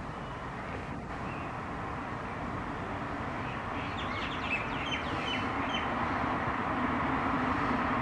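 Road traffic noise building steadily louder as a vehicle approaches, with a few short, high bird chirps about halfway through.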